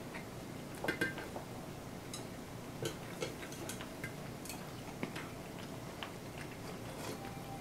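A scattered handful of light clicks and clinks of chopsticks and tableware against bowls and plates during a meal.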